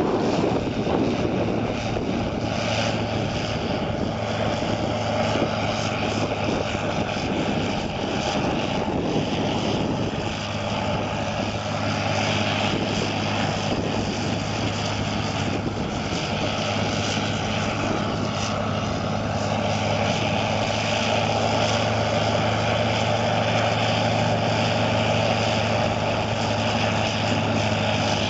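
Diesel engine of a slash grinder running steadily under load while grinding brush and slash, a constant low drone.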